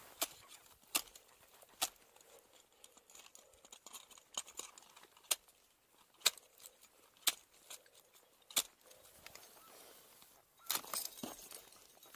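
Ice climbing tools and crampons tapping and striking the ice, with metal gear clinking: sharp separate clicks about once a second, turning into a quick run of taps and clinks near the end.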